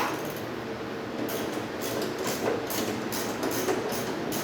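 Hand socket ratchet clicking in quick repeated strokes, about three a second, starting about a second in, as a bolt is turned on the Jeep.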